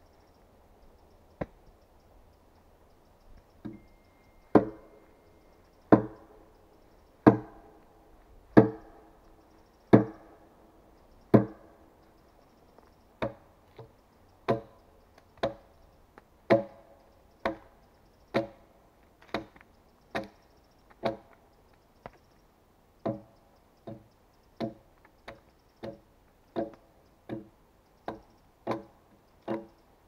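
Axe chopping into a log: a steady series of sharp blows with a hollow wooden ring. The blows are heaviest and slowest, about one every second and a half, for the first dozen seconds, then lighter and a little quicker, about one a second.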